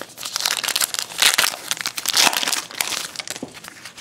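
A 2012 Topps Gypsy Queen baseball card pack's wrapper being torn open and crinkled by hand: a dense crackling, loudest about a second in and again about two seconds in.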